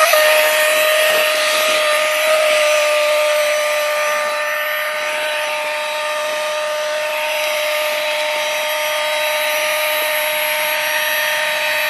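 Small electric air pump running steadily to inflate a sleeping mat: a noisy motor hum that holds one pitch, over a rush of air.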